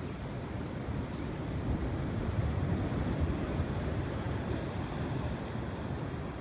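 Steady, low rumbling noise of wind and waves, with wind buffeting the microphone.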